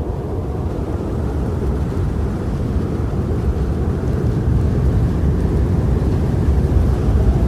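Deep, rumbling storm-wind ambience, a steady low roar that grows gradually louder.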